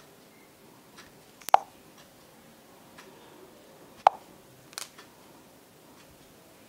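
Short, sharp clicks from tapping an Android smartphone's touchscreen while opening apps. The two loudest come about a second and a half in and about four seconds in, with a smaller double click soon after and a few faint ticks between, over a low room hiss.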